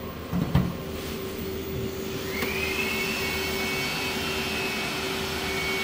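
Hybrid inverter cooling fans running steadily while the inverter carries a heavy load of about 4.9 kW from the battery. A high whine rises about two seconds in and then holds.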